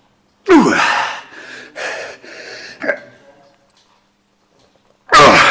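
A man grunting and crying out loudly with strain while pushing heavy reps on a plate-loaded chest press machine. There is a big cry about half a second in and another near the end, each falling in pitch, with shorter grunts between them.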